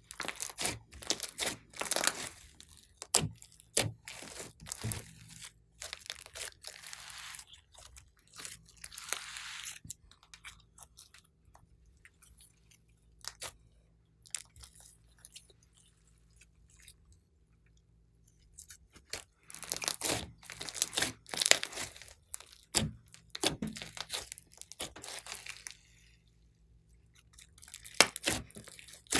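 Hands kneading, squeezing and stretching a large lump of slime, giving clusters of wet crackling, squishing and popping clicks. The sound goes sparse for several seconds in the middle and comes back busy, with one sharp pop near the end.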